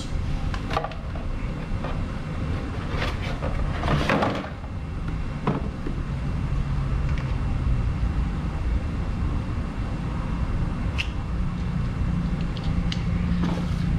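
Cardboard box rustling and a few soft knocks as a lithium motorcycle battery is slid out of its tight-fitting box and handled, the loudest knock about four seconds in, over a steady low hum.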